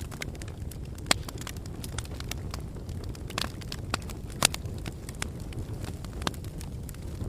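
Fire crackling: irregular sharp pops and snaps, two of them louder about a second in and near the middle, over a steady low rumble.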